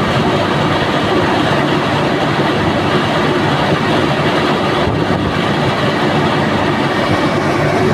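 Refrigerated shipping container's refrigeration unit running steadily, its compressor and fans making a loud, even mechanical noise with a faint hum.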